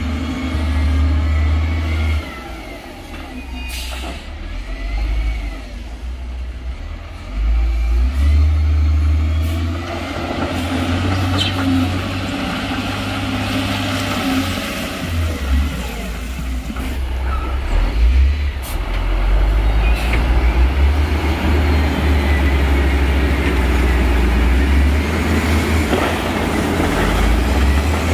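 Heavy diesel engines of dump trucks and a wheel loader running, the low rumble rising in revs and growing louder about a quarter of the way in. A few sharp knocks sound over it.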